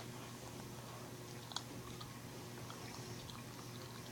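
Faint wet mouth noises: scattered short clicks and smacks, made on purpose as an annoying noise, over a steady low hum.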